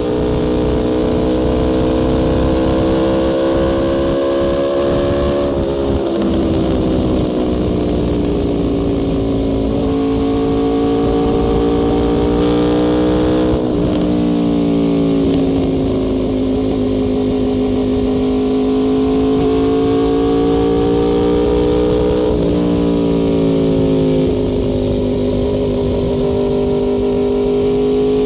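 Aprilia Tuono V4 R's V4 engine running hard at highway speed. The pitch climbs and holds under load, then drops abruptly at each of about four gear changes.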